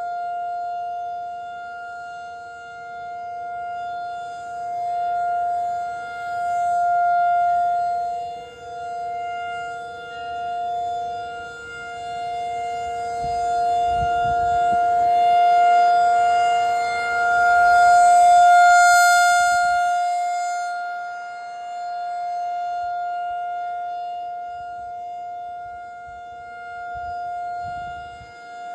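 Federal Signal 2001-SRN rotating siren sounding a steady full-alert tone, its loudness swelling and fading every few seconds as the rotating head sweeps around.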